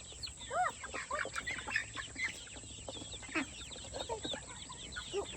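Chickens clucking and chirping: a flock giving many short, scattered calls, some with a rise and fall in pitch.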